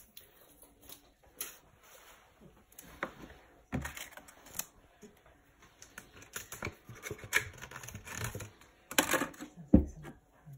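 Irregular light clicks and knocks of hard plastic tubs and a small plastic vial being handled and set down inside a clear plastic storage box, with a louder clatter and knock near the end.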